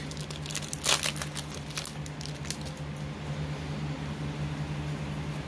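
Light rustling and clicking of Magic: The Gathering cards being handled and flipped through, busiest in the first second or so, over a steady low hum.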